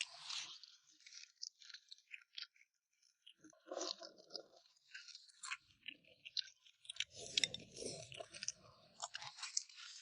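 A person chewing food at a meal, with many short sharp clicks and mouth sounds scattered irregularly, busiest from about seven to nine seconds in.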